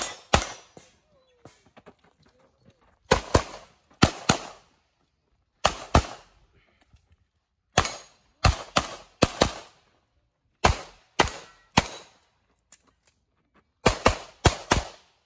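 Handgun shots fired in quick pairs, about twenty shots in all, with short pauses between the pairs as the shooter moves between firing positions; each crack has a brief echo.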